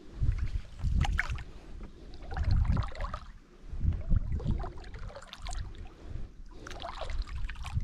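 Paddle strokes from a small wooden canoe: repeated splashes and gurgles of water, a stroke every second or two.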